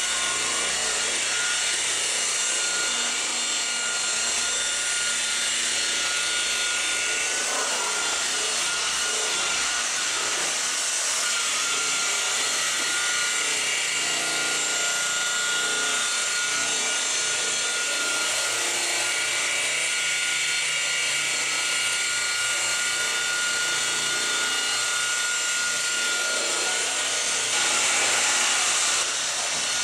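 DeWalt rotary polisher running steadily with its buffing pad pressed on car paint, a constant motor whine over the hiss of the pad rubbing, as it buffs scratches out of a painted rear spoiler.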